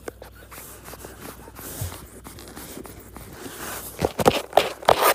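Scraping and rustling of a cardboard tube being handled, with a burst of sharp knocks and scrapes about four to five seconds in.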